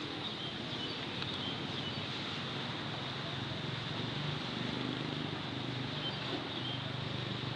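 Steady vehicle running noise, with a low engine hum under an even rush.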